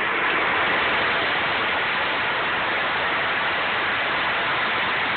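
Power nibbler running steadily as it cuts along a marked line in standing seam valley sheet metal.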